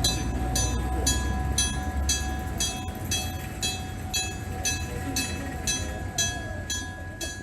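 Enoden level-crossing approach warning, an electric bell striking rapidly and steadily at about four strokes a second. A train's low rumble is under it for the first two or three seconds, then dies away.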